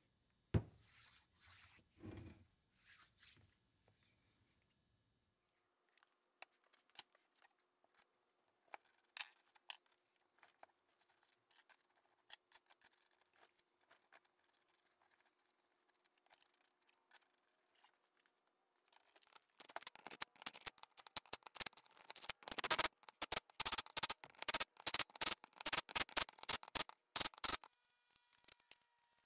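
Green masking tape being pulled off the roll in a long run of rapid crackling, which starts a little past the middle and is the loudest part, as the tape is wrapped onto the compressor pump to mask it for painting. Before that there are light clicks and knocks from metal pump parts being handled.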